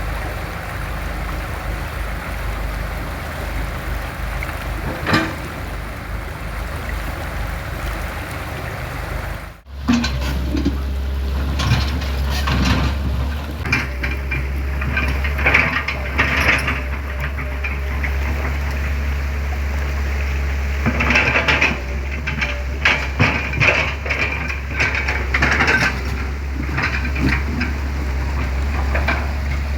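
Excavator's diesel engine running with a steady low drone, with repeated knocks, clanks and scrapes as the machine works mud off a roller. Before a sudden cut about ten seconds in there is a steadier, more hissing machine noise.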